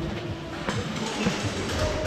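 Background music mixed with irregular low knocks and rustling from movement.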